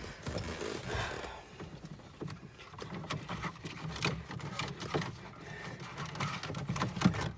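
Irregular small clicks, knocks and rustles of plastic dashboard trim being handled and worked loose from around the front cupholder of an Audi A2.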